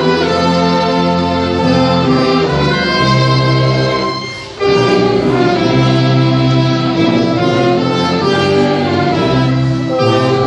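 Church orchestra playing a hymn in slow, sustained chords, with violins and other bowed strings prominent among wind instruments. There is a brief break between phrases about four seconds in.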